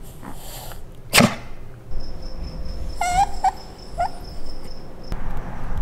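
Italian greyhound whining: three short, high cries about three seconds in, after a single sharp, short noise about a second in.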